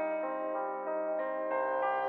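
Soft instrumental background music of sustained keyboard notes, with a new chord and a low note coming in about one and a half seconds in.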